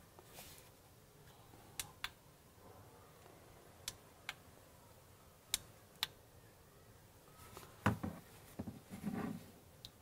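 Faint handling sounds: three pairs of short, sharp clicks spread out over several seconds, then soft thumps and rustling in the last two seconds as a power bank and a wireless chime receiver are handled and set down on a table.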